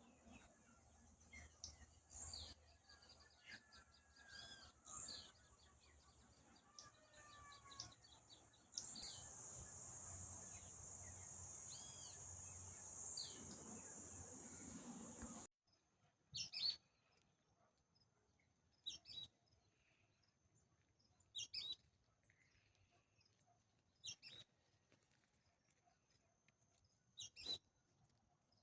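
Countryside birdsong: several birds chirping over a steady high-pitched buzz. The buzz swells loud for several seconds and then cuts off abruptly. After that, a bird gives a short sharp call about every two and a half seconds.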